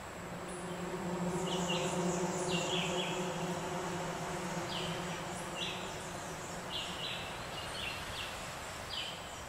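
A steady, low buzzing hum swells over the first couple of seconds and fades away after about six seconds. Throughout, short high two-note chirps repeat about once a second.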